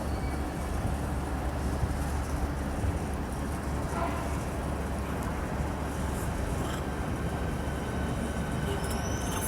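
Electric train standing at the platform, its equipment humming steadily, with a faint steady whine joining about seven seconds in.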